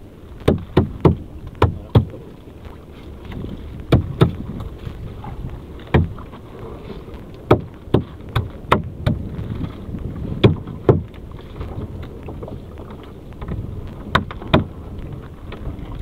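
Irregular sharp knocks and clatter on a small wooden fishing boat as a lobster net is hauled aboard over the gunwale, over a low steady rumble.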